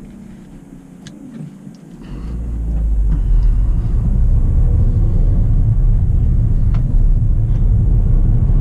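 Low, steady cabin rumble of a Ford New Fiesta on the move, heard from inside the car. It swells about two seconds in and then stays loud.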